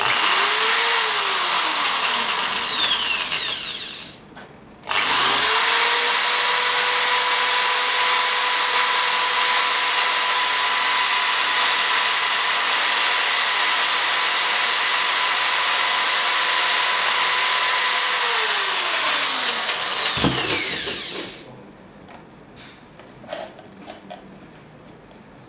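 Electric drill boring into a smartphone's glass screen, the bit grinding with a loud hiss. A short first run has its motor pitch sink and die away within about four seconds. After a brief pause a long steady run of about thirteen seconds winds down and stops, followed by a few light taps as the phone is handled.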